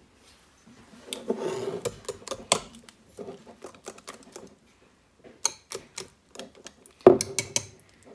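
Kitchen clatter: a string of light, irregular clicks and knocks from utensils and dishes being handled, busier in the second half.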